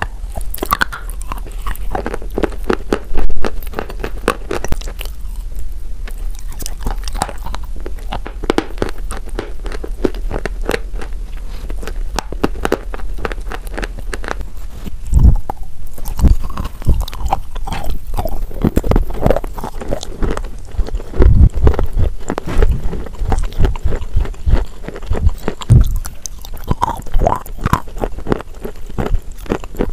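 Close-miked biting and chewing of wet chalk: dense crunching and clicking, with heavier, deeper bites from about halfway.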